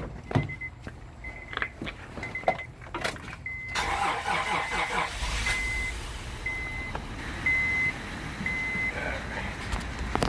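Car door opening, then the door-open chime beeping about once a second while a 2005 Honda Odyssey's 3.5-litre V6 cranks about four seconds in and catches a second later. The engine settles into running with a really bad misfire, a symptom of its blown head gasket.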